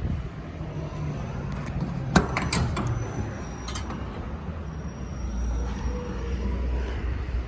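Low steady rumble of a running truck, with a series of sharp metallic clicks and knocks about two to four seconds in, the loudest about two seconds in.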